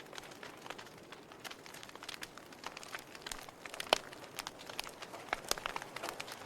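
Wood fire burning in a fireplace: a soft steady hiss with frequent irregular sharp crackles and pops, one louder pop about four seconds in.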